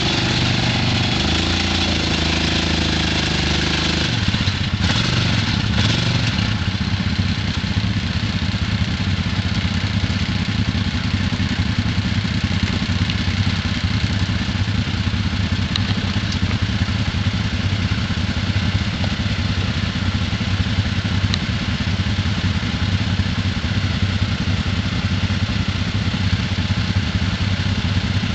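ATV engines idling. For the first few seconds one engine works harder, its pitch shifting, then it settles into a steady low idle.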